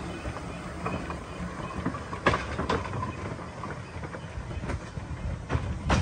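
Narrow-gauge Quarry Hunslet saddle-tank steam locomotive running past and away along the track, with its wheels clicking over the rails and a few sharp knocks over a low rumble.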